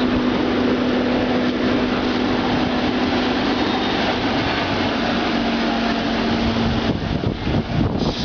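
Trolleybus under way: a steady electrical hum over road and body noise, with a run of knocks and rattles near the end.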